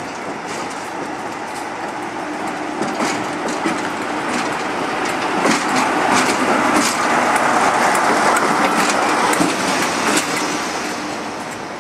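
Diesel locomotives rolling slowly past at close range, their bogie wheels clicking and clacking over rail joints and pointwork under a steady low hum. The sound grows louder through the middle.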